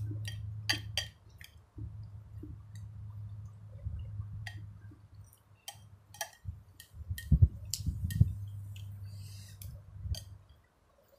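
A metal spoon and chopsticks clinking and scraping against a ceramic bowl of noodle soup, many short sharp clicks, with eating sounds over a steady low hum.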